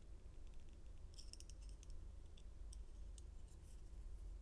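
Faint light metallic clicks and scrapes of a Master Lock 930 lock cylinder being worked to drop out a driver pin, with a short cluster of clicks about a second in.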